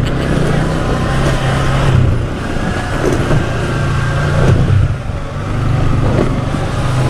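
Motorcycle engine running steadily under way, a constant low hum with a rushing noise over it.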